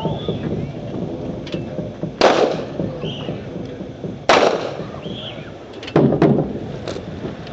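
Rifles fired into the air in volleys by a drill squad: three sharp reports about two seconds apart, the last one split into two shots close together, each echoing briefly.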